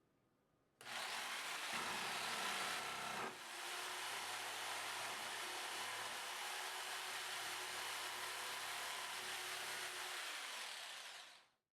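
Woodworking power tool cutting wood while lumber is milled: a steady cutting noise with a low motor hum that starts about a second in, shifts slightly a little after three seconds, and stops just before the end.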